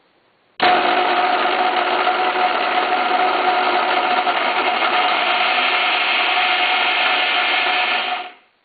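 Electrolux N12 compact food mixer's electric motor switched on, running at a steady speed with a whine, then switched off and spinning down quickly near the end.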